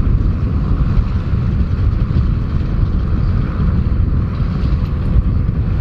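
John Deere 7810 tractor's six-cylinder diesel running steadily under load while pulling a spring-tine cultivator through the soil, a deep continuous rumble.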